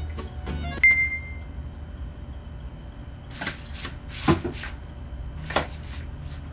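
Office chair knocking and creaking a few times as someone shifts and swivels in it, with the loudest knock near the middle. Before that, music trails off and a short high ping sounds about a second in.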